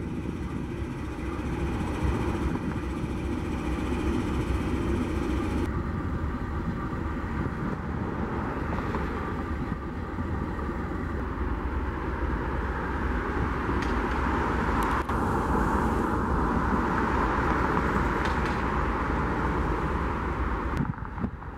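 Steady rumble and road noise of a moving vehicle, growing somewhat louder past the middle and dipping briefly near the end.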